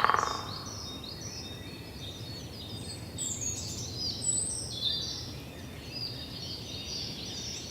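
Forest ambience: several songbirds chirping and trilling in short calls over a steady low background hiss. A brief buzzy rattle sounds right at the start.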